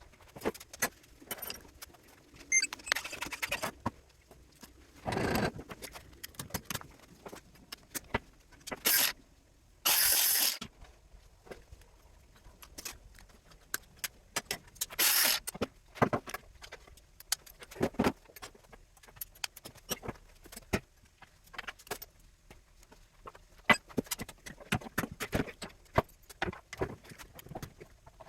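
Scattered clinks and clatter of small scrap metal pieces being handled and dropped, with a few short rasping noises of about half a second, the loudest about ten seconds in.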